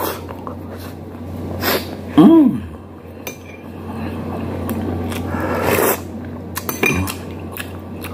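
A man eating with his hands: chewing and mouth noises with scattered light clicks of plates. About two seconds in there is a short, loud voiced exclamation whose pitch rises then falls. A steady low hum runs underneath.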